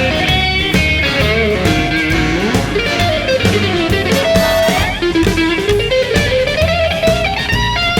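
Background music: an electric guitar solo with bent, sliding notes over a steady rock-and-roll drum and bass beat, in an instrumental break of a Christmas rock song.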